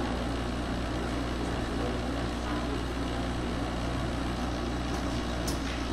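Automatic garment folding and bagging machine running with a steady low hum and mechanical noise. A couple of faint ticks come near the end.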